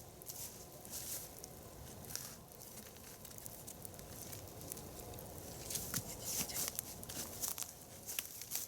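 Scattered rustles, crackles and light knocks of dry wood and forest litter being handled beside a burning nodya log fire, with the clicks coming thicker from about six seconds in.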